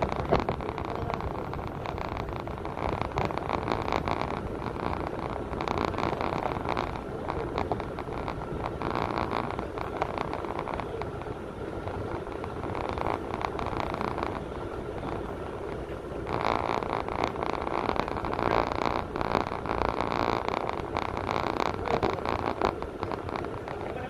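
Steady rumble of a moving vehicle, heard from inside it. Indistinct voices or chatter come and go over it, busier in the last third.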